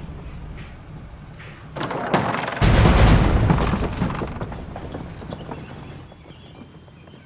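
A sudden deep boom about two and a half seconds in, just after a smaller hit, its rumble dying away slowly over the following seconds.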